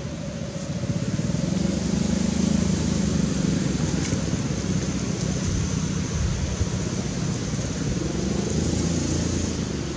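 Road traffic: the low rumble of a passing motor vehicle's engine and tyres, growing louder about a second in and easing off near the end.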